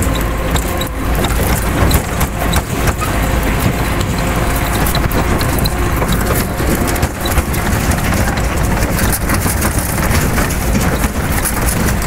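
Tractor engine running steadily as it tows a box trailer over a bumpy forest track, with the trailer body rattling and knocking many times.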